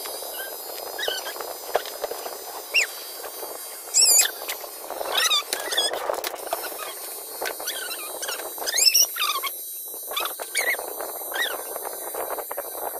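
Short, high squeaky animal calls that sweep up and down in pitch, about ten of them at irregular intervals and loudest around the middle and again about two thirds of the way in, over a steady background noise.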